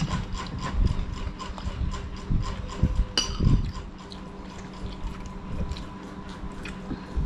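Children eating with metal spoons: spoons scraping and tapping a plate and a bowl of soup, with sipping and chewing. A fast run of light clicks runs underneath, with a few heavier knocks in the first half.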